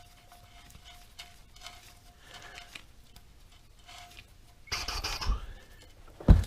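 Handling noise as the oil drain plug goes back into the oil pan by hand: faint scraping, a louder rustle about five seconds in, and a short low thump near the end.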